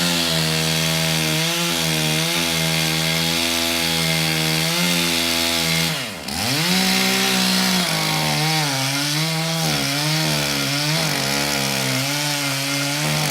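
Chainsaw running at high revs, cutting into a tree trunk. About six seconds in the engine briefly drops in pitch and comes back up. In the second half its pitch wavers as the chain bites into the wood under load.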